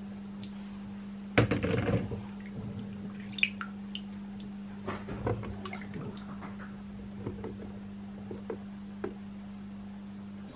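Water splashing and dripping as cherry plums are washed and drained: a short burst of splashing about a second and a half in, then scattered drips and small knocks over a steady low hum.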